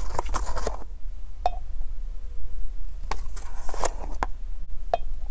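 A plastic pouch of powdered aojiru rustling and crinkling as it is tipped and the powder is shaken into a glass jar. The rustling comes in two stretches, with a few light clicks between them.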